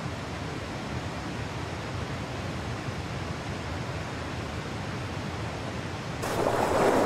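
Steady rush of river rapids pouring over rocks. About six seconds in comes a sudden louder burst of splashing water as a giant otter plunges from the rocks into the torrent.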